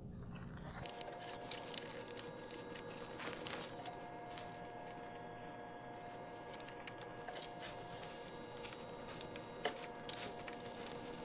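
Faint clinks and rustles of gloved hands routing a new MK7 GTI serpentine belt down around the pulleys in the engine bay. A faint steady hum sits behind from about a second in.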